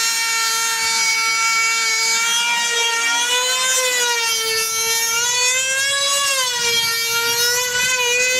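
Small two-stroke model aircraft engine of a control-line combat plane running flat out with a loud, high-pitched whine. The pitch holds steady for about the first two seconds, then rises and falls in slow waves as the plane circles on its lines.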